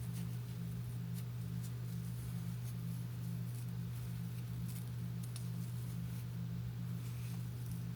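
Steady low electrical hum throughout, with a few faint small ticks and rustles over it.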